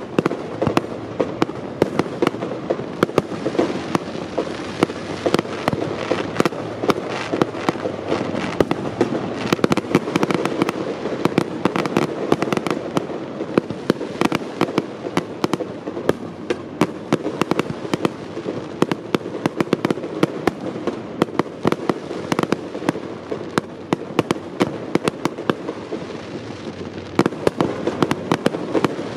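Aerial fireworks bursting in quick succession: a dense run of sharp bangs and crackles over a continuous rumble, with no let-up.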